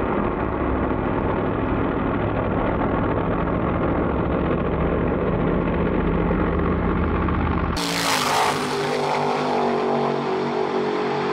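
Engines of two drag-racing pickup trucks, one of them turbocharged, running at the starting line. About eight seconds in they launch, and the sound turns suddenly harsher and brighter as they pull away down the track.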